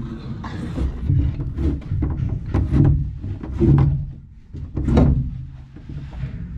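A series of irregular knocks and thumps on wooden timbers over a low rumble, the loudest about five seconds in.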